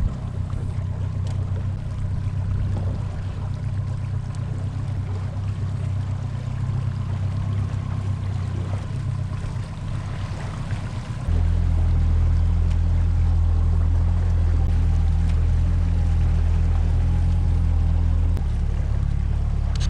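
Outboard motor of a small inflatable boat running steadily, a low hum that jumps abruptly louder about 11 seconds in and shifts again near the end.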